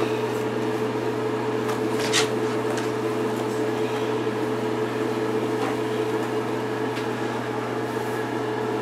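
Steady electric hum, like a motor or fan running, holding one constant tone throughout, with a soft click about two seconds in.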